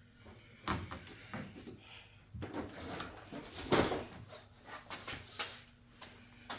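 Irregular knocks, clicks and rustling of handling as the camera is picked up, carried and set down in a new spot, with the loudest knock a little under four seconds in.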